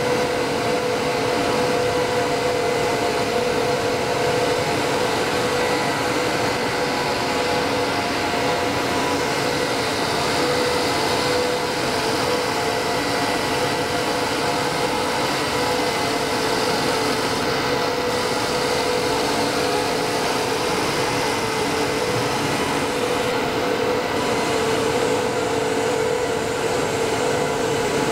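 Intermediate copper wire drawing machine with an inline annealer running: a steady machine hum with several held tones over an even rushing noise.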